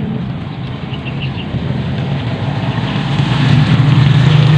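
A motor engine drones steadily and gets louder toward the end.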